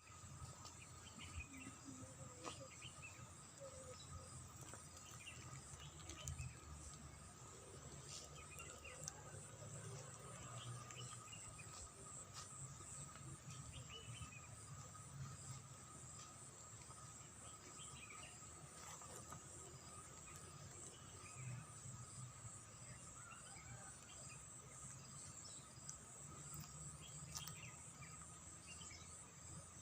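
Faint outdoor chorus of insects trilling: a steady, pulsing high trill with a second, lower continuous tone beneath it. Scattered short bird chirps and a low rumble sit under the trill.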